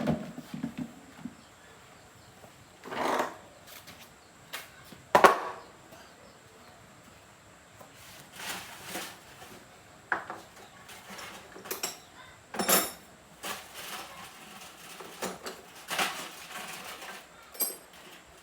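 Scattered knocks, clicks and clinks of hard objects being handled, irregular and a second or more apart, the loudest about three and five seconds in.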